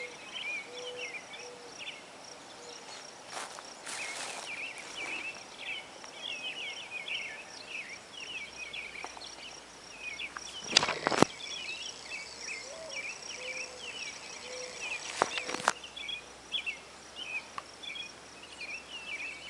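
Open-country ambience: many small birds chirping and a steady high insect trill. Two sharp taps stand out, about halfway through and again some four seconds later.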